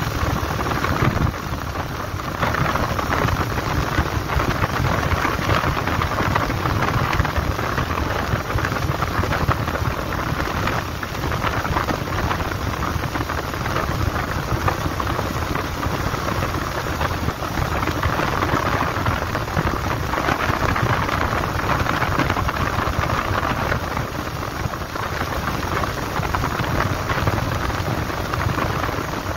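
Wind rushing over a handlebar-mounted microphone on a moving Bajaj Pulsar 150 motorcycle: a steady noisy rush with low rumble that covers the engine.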